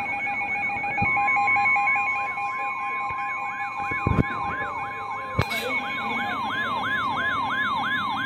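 Electronic warning siren cycling in a repeating sweep, about three times a second, layered with steady electronic alert tones; another steady tone joins about a second in. Two short knocks sound near the middle.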